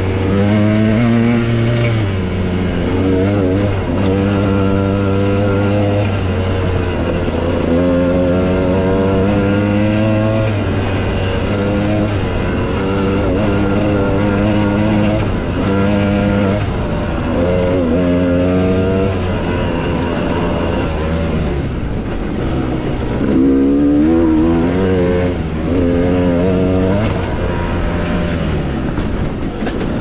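Dirt bike engine under way, its pitch repeatedly climbing and dropping as the throttle is worked through the trail riding.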